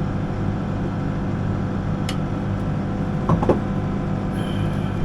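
Backhoe diesel engine running steadily, heard from the operator's seat, with a few brief knocks from the machine about three and a half seconds in.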